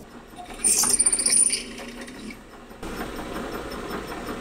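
Drill press bit cutting into the annealed Damascus steel knife tang, with a loud, high-pitched metallic squeal about a second in, then steady running.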